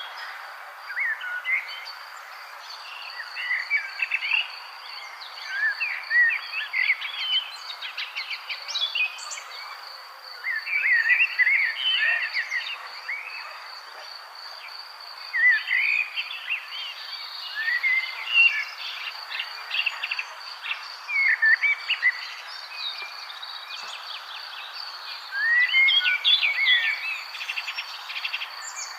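Songbirds singing in short bursts of chirps and warbles every few seconds over a steady, high insect trill, with a soft hiss of background ambience.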